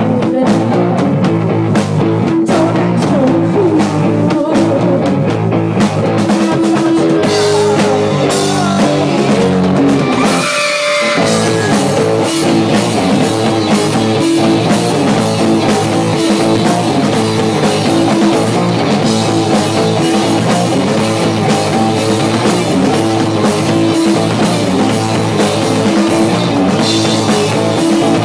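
Live rock band playing loud, with electric guitar and a drum kit keeping a steady beat. About eleven seconds in the low end drops out for a moment before the full band comes back.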